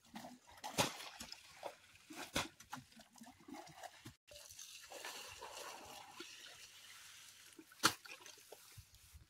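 Wet mud squelching and dripping as it is scooped and lifted by hand, with a few sharp knocks now and then.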